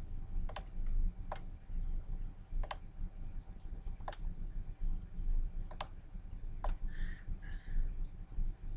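Single clicks of a computer mouse and keyboard while cloning in an image editor, about six separate clicks a second or so apart, over a low steady hum.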